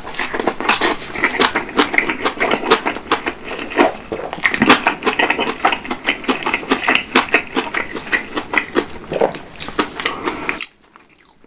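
Close-miked chewing of a mouthful of cabbage kimchi: many quick, irregular wet crunches that stop about a second before the end.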